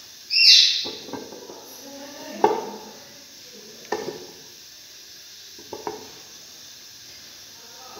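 Whole sweet potatoes being set by hand into a metal cooking pot: four knocks against the pot about every second or two. A short, loud, high squeak comes about half a second in and is the loudest sound.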